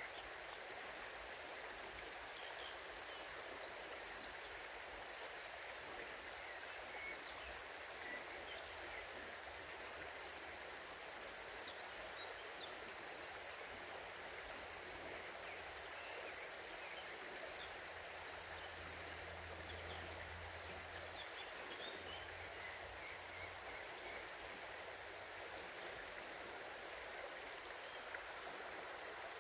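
River water flowing: a steady, even rush of moving water.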